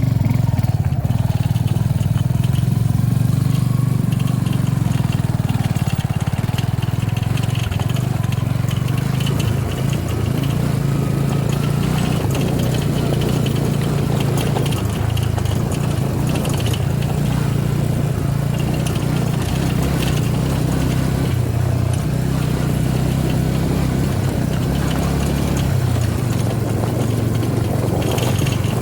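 Suzuki V-Strom 250 SX single-cylinder engine idling steadily, with a rattling noise coming from the bike.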